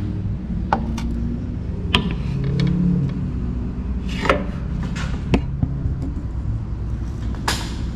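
Scattered sharp clicks, knocks and rubbing as a car's cooling fan assembly is handled and worked into its mounting tabs, over a steady low hum.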